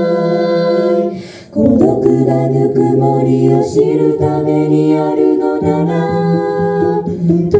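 Four-voice a cappella group, two men and two women, singing in harmony through microphones. A held chord breaks off about a second in, and after a brief pause the voices come back in with a low bass line under the harmony.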